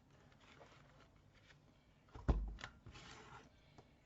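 A paper corner rounder punch pressed down through the paper: one sharp clack about two seconds in, with light paper handling and small clicks around it.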